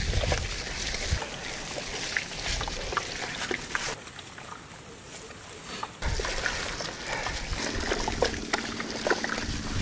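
Raw chicken pieces being hand-mixed in a thick yogurt marinade in a large metal pot: irregular wet squelching and sloshing with small clicks, easing off for a couple of seconds around the middle.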